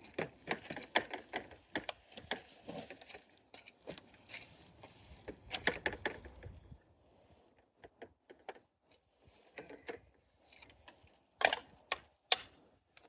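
Irregular clicking and rattling of hand tools and metal hardware being worked on a plastic round bale feeder, dense for the first half, then sparse ticks, with two sharp knocks near the end.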